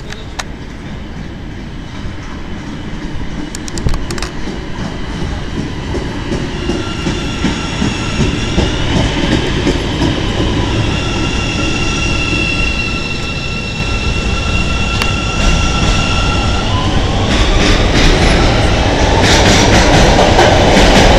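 Chicago 'L' rapid-transit train pulling into a station and slowing to a stop, its electric traction motors giving a steady high whine over the rumble of the wheels. Near the end another train rushes past in an underground station, loud, with rapid clicking of wheels over rail joints.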